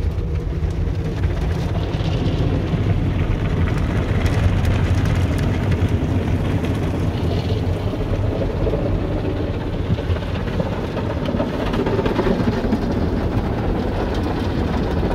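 Automatic tunnel car wash heard from inside the car: water spray and soapy wash brushes scrubbing across the windshield and body, a loud steady rush with a heavy low rumble.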